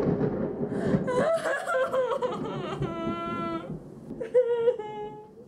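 A girl's wordless vocal sounds, whining and laughing, with a held note about three seconds in and another, slightly falling, near the end.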